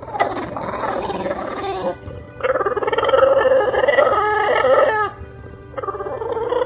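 A dog making strange, warbling vocal sounds in three bouts, with short pauses between them.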